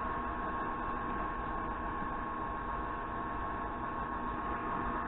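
Steady background hum and hiss with a constant high tone running through it, and no distinct knocks or clicks.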